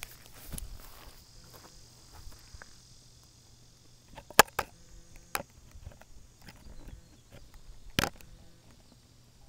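Steady high-pitched insect buzzing, like cicadas or crickets, with a few sharp clicks or knocks over it. The loudest knocks come about four and a half seconds in and again near eight seconds.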